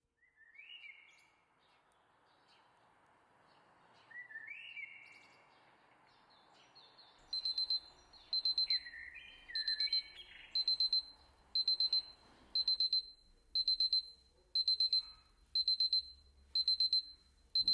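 Birds chirping over a soft background hiss, then from about seven seconds in a digital alarm clock beeping: quick runs of high beeps repeating about once a second.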